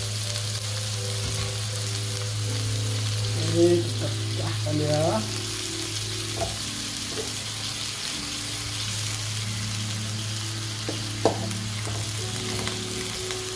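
Bok choy and pork pieces sizzling steadily in an aluminium wok while a metal spatula stirs them, with a sharp knock of the spatula on the wok about four seconds in and another near the end. A steady low hum runs underneath.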